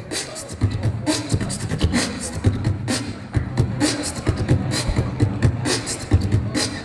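Beatboxing into a handheld microphone: a fast, continuous rhythm of low kick-drum thumps with sharp snare and hi-hat clicks between them.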